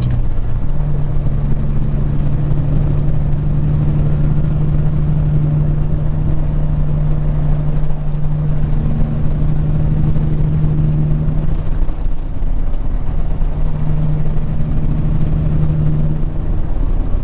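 Peterbilt 379's diesel engine droning steadily at highway speed, heard inside the cab. A faint high whistle rises and falls three times over the drone.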